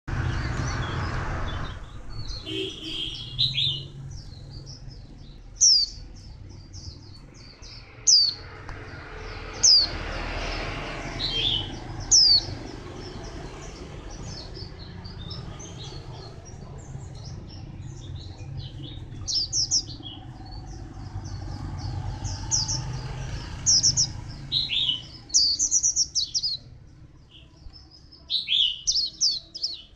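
White-eye singing: sharp, high, downslurred notes every second or two, breaking into quick twittering runs over the last several seconds.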